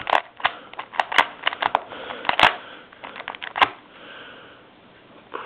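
Rubik's Cube faces being turned by hand: a run of irregular plastic clicks and snaps that stops after about three and a half seconds. A soft breathy sniffing sound follows near the end.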